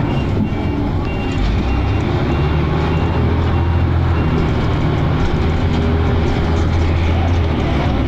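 Dennis Arrow double-decker bus engine running under way, heard from inside the bus, a steady low drone. A short high beep repeats about twice a second through the first half, then stops.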